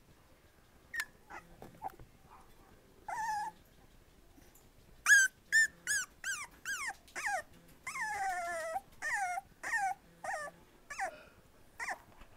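Four-and-a-half-week-old puppy crying repeatedly: one cry about three seconds in, then from about five seconds a string of a dozen or so short high whines, each falling in pitch.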